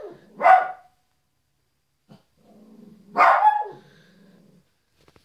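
Small dog barking: one loud bark about half a second in, then a low growl that rises into a second loud bark about three seconds in and trails off after it.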